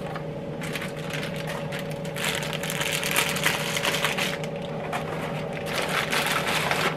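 Crinkling of a bag of breading and a cardboard box being folded shut in three stretches, over the steady hum of a Paula Deen 10 qt air fryer running.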